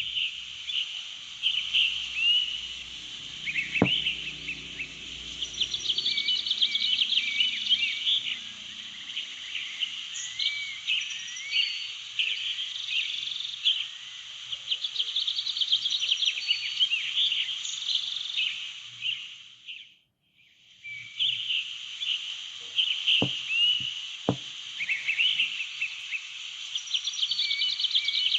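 A nature ambience track of many small birds chirping and twittering over a steady high hiss of insects. It fades out briefly about twenty seconds in, then starts again.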